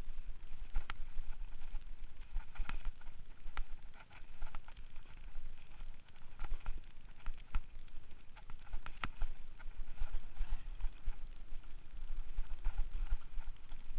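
Mountain bike clattering over a bumpy dirt trail: irregular sharp knocks and rattles over a low wind rumble.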